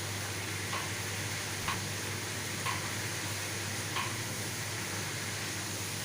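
Food sizzling in a hot pan as it is stirred, with four light knocks of the utensil against the pan about once a second, over a steady low hum.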